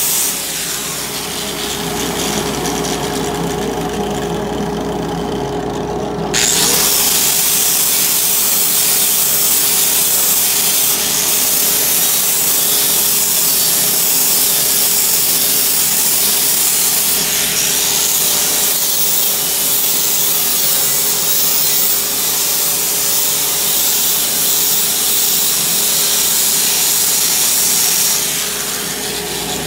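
DeWalt corded angle grinder with a flap disc sanding weld spatter off a steel welding table: a steady motor whine under the hiss of the disc grinding on the steel. The grinding hiss gets louder about six seconds in, and the grinder eases off the metal near the end.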